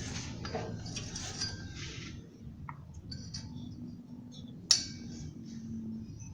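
Metal tools and parts clinking and tapping as they are handled, with one sharp, louder clink about three quarters of the way through.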